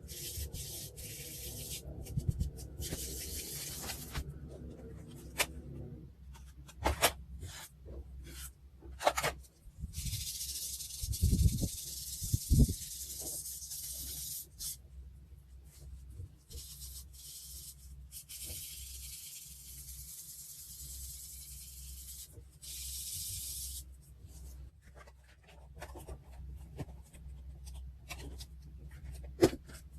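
Paper and stationery handled at close range: rustling, sharp taps and clicks, and two longer stretches of scratchy hissing, of the kind made by peeling stickers or masking tape, or by rubbing over paper.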